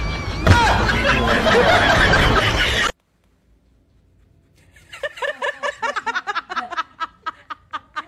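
A loud, noisy stretch cuts off sharply about three seconds in. After a short silence, a woman laughs in quick, breathy snickering bursts, about four or five a second.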